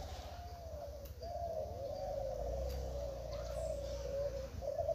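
Many caged Klantan-line spotted doves (derkuku) cooing at once. Their calls overlap into an unbroken chorus of wavering coos.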